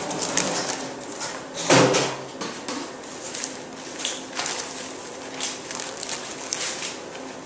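Disposable paper surgical drapes rustling and crinkling as gloved hands unfold, lay and smooth them, in a run of short rustles with one louder, fuller rustle about two seconds in.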